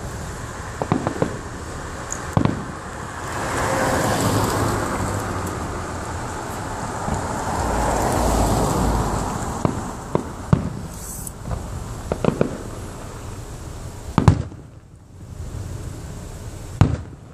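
Aerial fireworks display: a series of sharp bangs from shells bursting overhead, the loudest about fourteen seconds in, with two longer swells of rushing, grainy noise between them.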